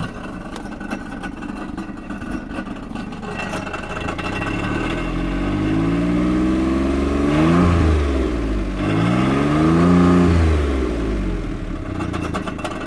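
Smart fortwo 451 engine idling with a rattle, revved twice about five and nine seconds in, its pitch rising and falling each time, then back to a rattling idle.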